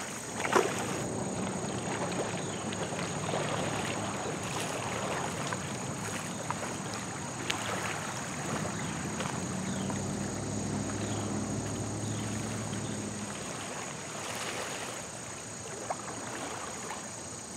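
Kayak paddle strokes splashing and water moving at the bank as a racing kayak paddles off and comes back, with a few sharper splashes, the clearest about half a second in. A faint low drone runs through the middle.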